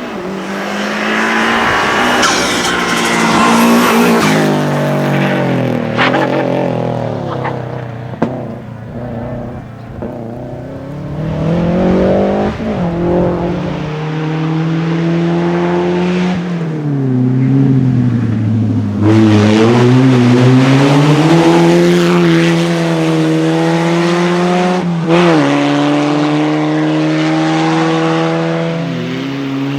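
Racing car engine revving hard under full throttle, its pitch climbing through the gears and dropping sharply on lifts and downshifts, with a sharp crack about 25 seconds in.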